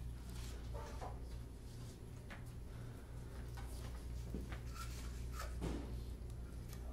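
Room tone: a steady low hum with a few faint scattered knocks and rustles.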